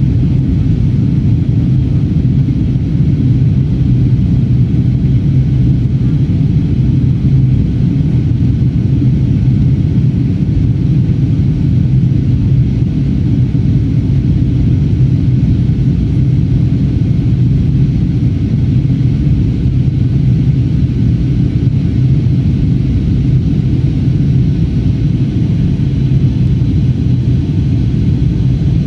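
Steady low rumble of a twin-engine jet airliner in flight, heard inside the cabin: engine noise and airflow over the fuselage, unchanging throughout.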